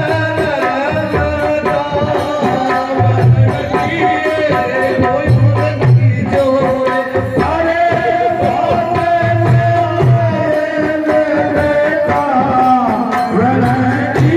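Rajasthani Holi dhamal folk song: a voice singing long held notes over chang frame-drum accompaniment, with a deep drum stroke recurring about every two seconds.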